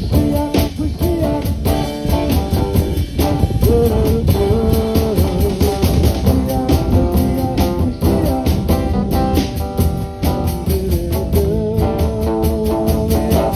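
Live Chasidic rock band playing, with guitars over a drum kit keeping a steady beat.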